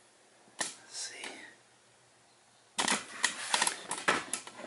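Plastic packaging crinkling and clicking as it is handled. A single click comes early, then a dense run of crackles from about three seconds in.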